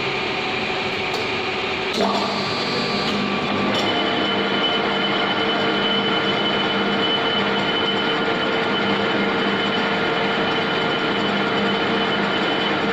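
Lathe running steadily, a mechanical hum and whine with several held tones; the tones change with a click about two seconds in and shift again just before four seconds, then stay steady.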